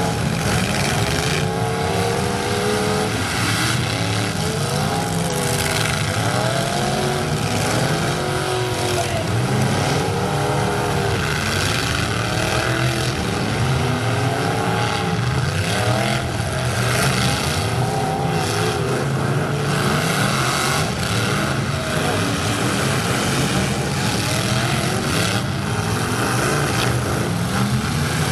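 Several demolition-derby pickup trucks' engines revving hard over one another, their pitch constantly climbing and falling as they push and ram in the mud, with occasional bangs from hits.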